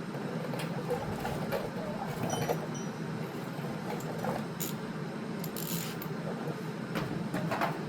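Scattered light metallic clicks and clinks of hand tools and small hardware being handled, over a steady low hum.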